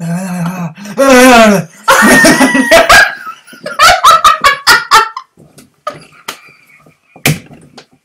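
A man and a woman laughing hysterically: a low drawn-out voice, then loud wavering, falling shrieks of laughter, then a quick run of ha-ha bursts about four or five a second that dies down into gasps and breaths.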